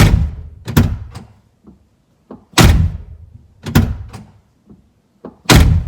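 BMW E53 X5 car door being shut and opened repeatedly to test a newly fitted exterior door handle carrier: five loud thunks, in pairs about a second apart, as the door closes and its latch is released.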